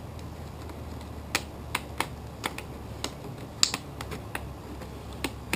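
Thin plastic one-gallon drink jug crackling and clicking as it is handled and squeezed: a string of sharp, irregular clicks, the loudest a little past halfway.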